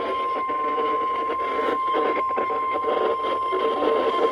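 NOAA Weather Radio warning alarm tone: a single steady 1050 Hz tone, the signal that opens an alert broadcast, heard through a radio receiver over reception hiss and crackle.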